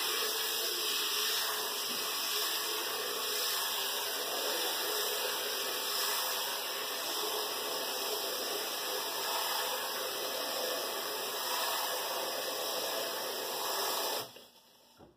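Kitchen faucet running steadily into a pot as brown rice is washed and stirred by hand. The water cuts off about a second before the end.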